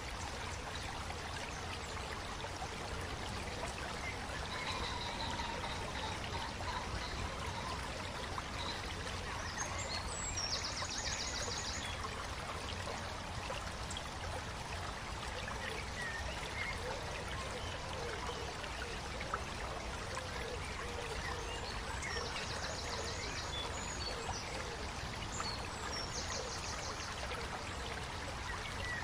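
Steady trickling and splashing of shallow water around toy vehicles in a puddle, with a few short, fast, high trills now and then.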